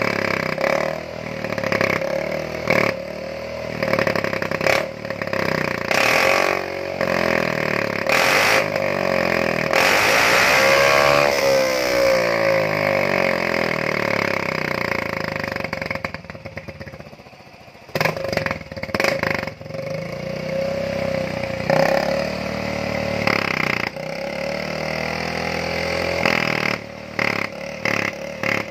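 Yamaha Fino 125 scooter's single-cylinder engine revving through an aftermarket Ahau exhaust that has been hollowed out for a loud drag-race 'MP7' sound. Repeated sharp throttle blips, a longer rev that rises and falls about ten seconds in, a brief drop to a quiet idle just past halfway, then quick blips again near the end.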